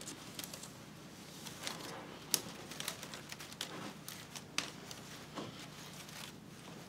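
Cloth rustling and scraping as a plaid wool blanket is pressed and tucked into a wicker basket, with a few sharp clicks and crackles from the wicker being handled.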